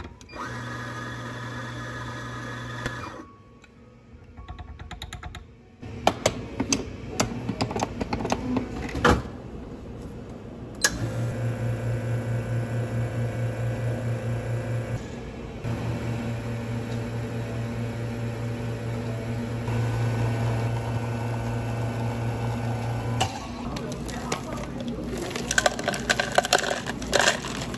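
An electric coffee grinder runs briefly, grinding into a portafilter, and is followed by a few knocks and taps. Then a Rancilio Classe 5 espresso machine's pump buzzes steadily for about twelve seconds, with a short break, as shots are pulled to flush out the chemicals and residue left from cleaning the machine. Near the end, glassware clinks and clatters.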